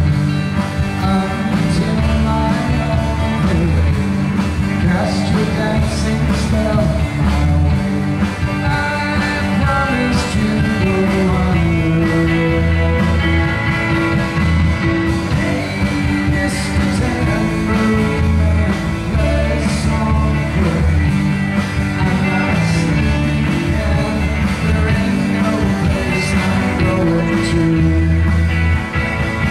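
Live rock band playing with a male singer at the microphone, over guitar and electric bass, loud and continuous.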